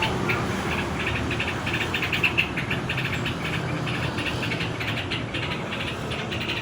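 Yellow-vented bulbuls calling: a quick run of short, high chirps, several a second, over a steady low hum.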